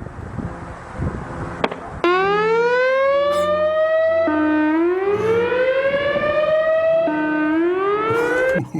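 Siren sounding its "bee-wop" tone: a pitched whoop that climbs over about two seconds, drops back and climbs again, three sweeps in all, then cuts off. Before it, about two seconds of hiss with a single click.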